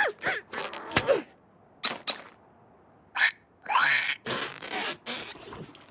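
Cartoon ostrich's short squawks and grunts mixed with slapstick sound effects: sharp clicks about a second and two seconds in, a near-silent pause, then a sudden burst and a whoosh.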